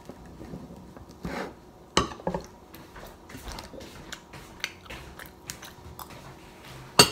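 Metal fork and spoon clinking and scraping on a plate of rice, with chewing. A sharp click near the end is the loudest sound.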